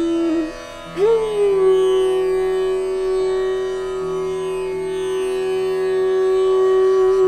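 Indian classical-style instrumental background music: over a steady drone, a melody note slides up about a second in and is held long, wavering slightly near the end.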